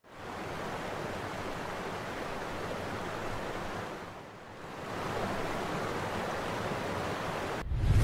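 Steady rushing of a waterfall's water, dipping briefly about four seconds in. Loud music with a heavy bass comes in near the end.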